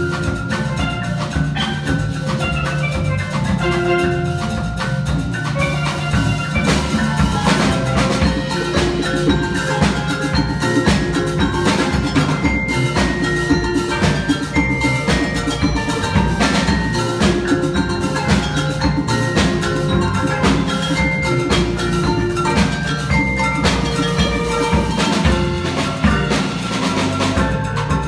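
Percussion ensemble playing live, led by marimbas and other mallet instruments, with a drum kit and a low bass line underneath.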